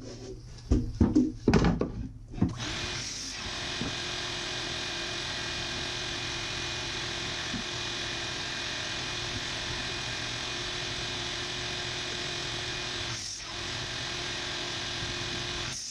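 A few wooden knocks as boards are handled, then an electric power tool's motor starts and runs steadily with a constant whine, dropping out briefly near the end.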